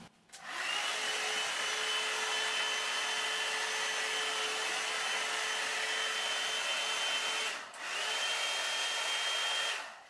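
Revlon One-Step hair dryer brush blowing on high heat, a steady whirring with a high whine that rises as it spins up. It cuts out briefly about seven and a half seconds in, spins up again and is switched off near the end.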